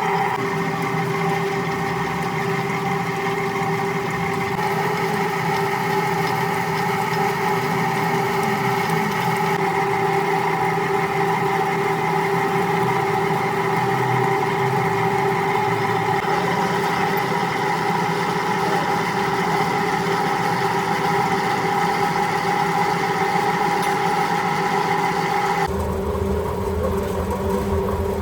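Manual metal lathe running steadily, its motor and gearing giving a constant whine with several held tones. The sound changes abruptly a couple of seconds before the end.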